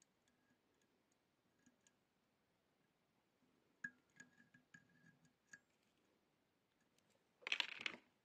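Quiet handling of fly-tying tools: a cluster of light clicks from wire hackle pliers, then one short rustling scrape near the end as the pliers are taken off.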